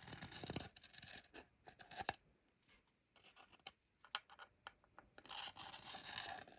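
Hand deburring tool shaving the ragged brim edge off a 3D printed plastic part in slow one-way strokes: a faint scraping. One stroke in the first two seconds, scattered small ticks, then another scrape from about five seconds in.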